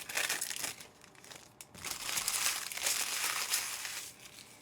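Trading card pack wrappers crinkling as the packs are handled and torn open, in two stretches: about the first second, then again from about two to four seconds in.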